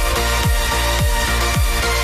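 Electronic dance music with a deep kick drum that drops in pitch on each hit, a little under two beats a second, over held synth notes.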